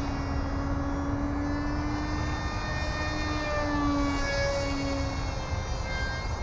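Electric motor and propeller of a small RC delta wing whining in flight overhead. The motor is a Grayson Hobby Micro Jet V3 2200 kV brushless outrunner. The pitch holds roughly level with small wavers and steps as the throttle and distance change, over a low rumble.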